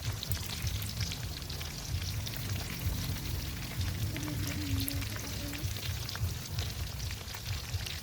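Chicken thighs frying in hot oil: a steady sizzle with many small crackles and pops.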